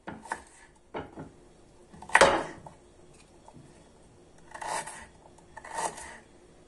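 Kitchen knife cutting peeled fresh ginger into small pieces on a cutting board. A few light knocks come first, then one loud strike about two seconds in, then two longer scraping strokes of about half a second each near the end.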